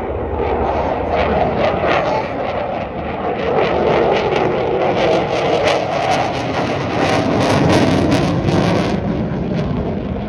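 Eurofighter Typhoon fighter jet flying a display, its twin jet engines loud throughout. A crackle builds from about five seconds in and eases after about nine seconds.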